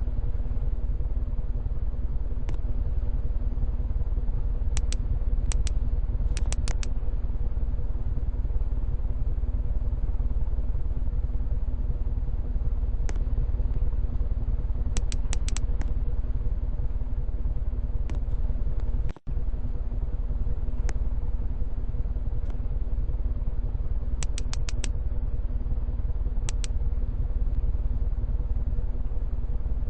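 Hunter Second Century Original 52-inch ceiling fan running, a steady motor hum with a few clear tones in it. Light ticks come in small quick clusters every few seconds.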